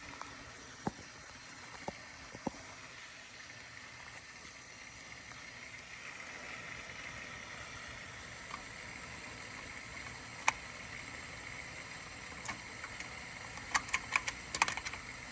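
Steady low hum of a boiler room with scattered sharp clicks and taps, a quick run of them near the end, as the oil boiler's aquastat control is tested. The burner is not firing: the aquastat is putting no power to it.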